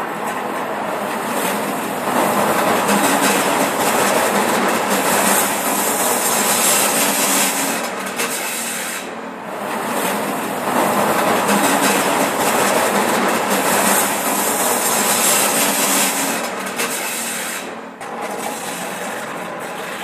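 Stadler Regio-Shuttle diesel railcar passing, its wheels making a loud, harsh rasping and squealing noise on the rails that the uploader blames on badly maintained track. The noise swells twice, with a short dip between the swells, and eases near the end.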